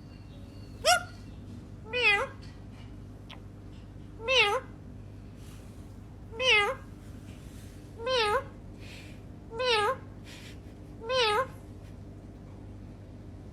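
Seven meows in a row, each short with a wavering rise and fall in pitch, spaced about a second and a half to two seconds apart.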